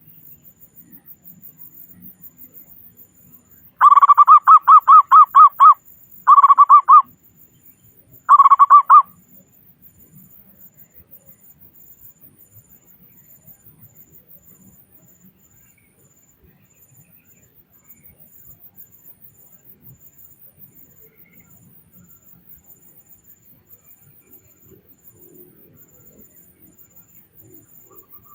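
Zebra dove (perkutut) singing: three phrases of rapid pulsed cooing notes, a long one about four seconds in and two shorter ones soon after, followed by only faint background.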